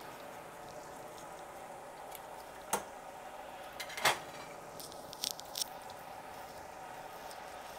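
Chicken nuggets frying in the hot oil of an electric deep fryer: a steady bubbling sizzle. A few sharp clicks come through it, the loudest about four seconds in.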